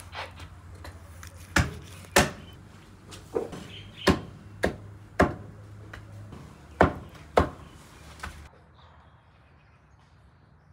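A kitchen knife chops through cooked stuffed sausage and knocks on a wooden cutting board, about nine sharp, uneven knocks. About eight and a half seconds in, the chopping stops abruptly and only a faint background remains.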